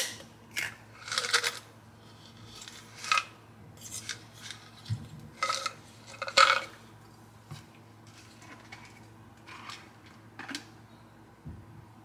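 Hands handling small objects at a counter: a few short clicks and crinkles spread out, loudest about six seconds in and thinning out toward the end.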